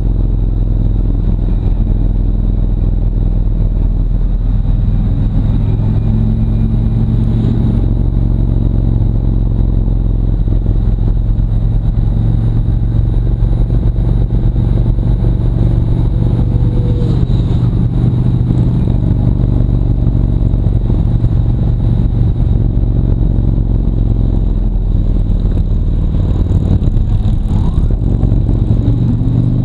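Harley-Davidson Road Glide Ultra's V-twin engine running steadily under way, picked up by a camera mounted on the bike.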